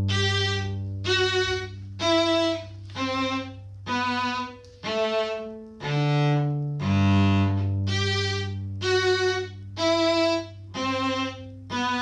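A bowed string instrument playing a slow phrase of separate notes, each cleanly started, about one a second, over a held low note. The same phrase starts again about seven seconds in.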